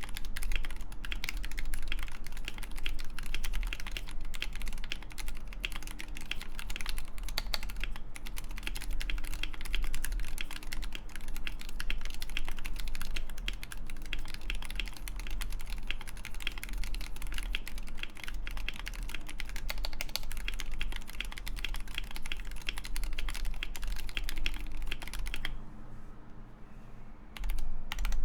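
Steady fast typing on a Mekanisk FJELL mechanical keyboard with Wooting 60HE internals, lubed Gateron Lekker L45 linear switches and a full steel plate: a dense run of keystroke clacks, with a short pause near the end before the typing picks up again.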